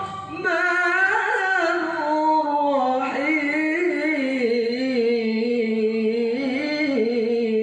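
A single voice reciting the Quran in melodic tajwid style, drawing 'ar-Rahman' out into one long, ornamented phrase whose pitch wavers and glides.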